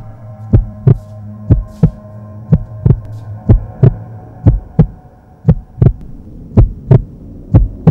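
Heartbeat sound: a deep double thump, lub-dub, repeating about once a second, over a steady low hum whose deepest part thins out about halfway through.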